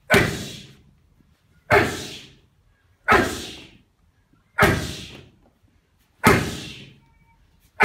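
Punches landing on a focus mitt: sharp loud smacks about every second and a half, each followed by a short echo.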